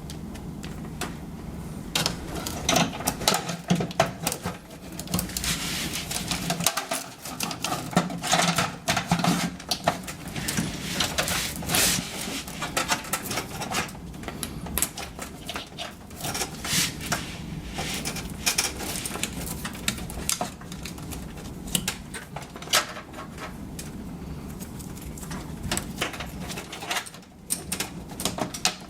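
Irregular clicks, taps and rattles of hands handling SATA cables and hardware inside a desktop PC case, over a steady low hum.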